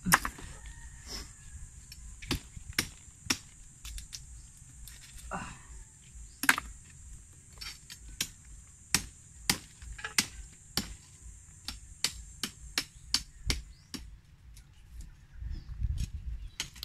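A long series of sharp knocks, one or two a second, coming faster in the middle and stopping a few seconds before the end, over a steady high-pitched hiss.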